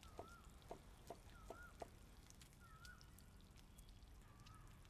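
Faint knife taps on a wooden chopping board as ginger is sliced, about five in the first two seconds. Behind them a bird repeats a short whistled note about every second and a half.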